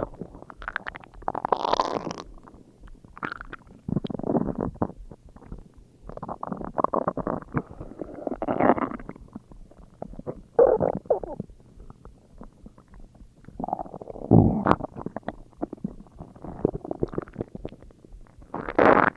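Human stomach growling and gurgling: an irregular run of rumbles and gurgles, some short and some lasting about a second, with quieter gurgling in between.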